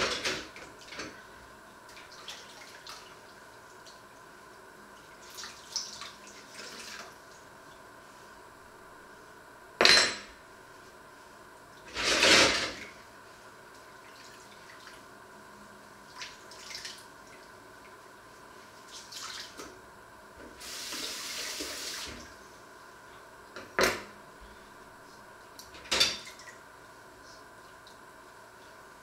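Dishes and cutlery washed by hand in a stainless-steel sink: scattered clinks and clatters, several of them sharp, with a brief run of water about two-thirds of the way through.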